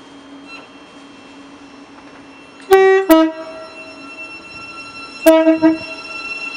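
A Class 700 electric multiple unit sounds its two-tone horn about two and a half seconds in, a higher note followed straight away by a lower one, then gives a second short blast about two seconds later. The train's steady electric hum runs underneath.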